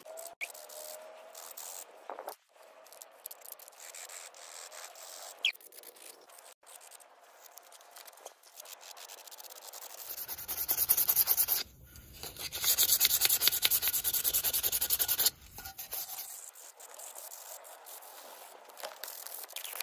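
Needle file scraping along the rim of a hand-hammered copper pot's spout in light, uneven strokes. About halfway through come several seconds of much louder, fast rubbing strokes, broken briefly once, before the lighter scraping returns.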